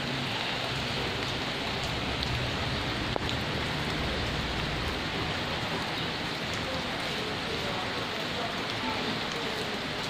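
Steady rain falling on the leaves of a tree and the ground around it: an even hiss with scattered ticks of single drops, one sharper tick about three seconds in.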